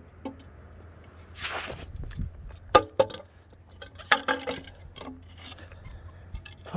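Sharp knocks and clinks from handling a slimy old metal pipe just pulled up on a fishing magnet: single hits, a quick cluster about four seconds in, and a short scraping rustle between them.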